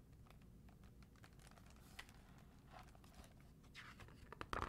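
Near silence with a few faint clicks of a hardcover picture book being handled, then the book's paper page is turned near the end, a short rustle.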